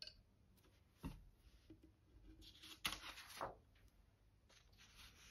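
Mostly near silence, with two faint taps in the first second, then a brief rustle and slide of printed paper sheets being moved across a table about three seconds in.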